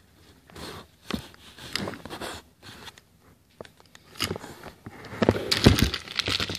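Irregular handling noises: short knocks, rubs and rustles of hands moving on a tabletop and near the recording device, busier and louder about five seconds in.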